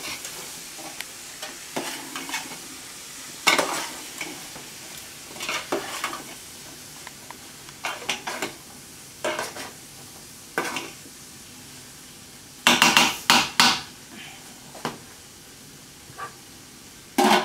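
Green beans sizzling as they sauté in bacon-garlic butter in a large aluminium stockpot. A metal slotted spoon scrapes and knocks against the pot as they are stirred, in short strokes every second or two, with a louder run of knocks about two-thirds through.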